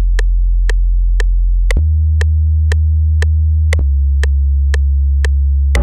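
Synth sub bass playing long low notes, moving to a new note about every two seconds, over a metronome click ticking about twice a second at the project's 118.663 BPM tempo.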